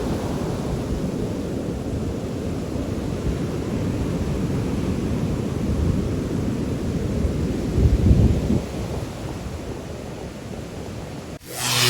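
Ocean surf on the beach with wind buffeting the microphone, a heavy gust about eight seconds in. It cuts off abruptly just before the end.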